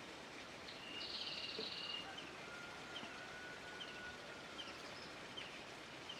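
Small birds calling over a steady background hiss: a buzzy trill about a second in, then short high chirps repeated roughly once a second.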